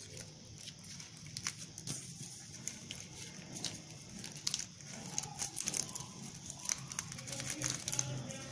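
Thin crepe-like lumpia wrapper rustling and crinkling as fingers fold and press it around a moist bamboo-shoot filling, with scattered small clicks and rustles.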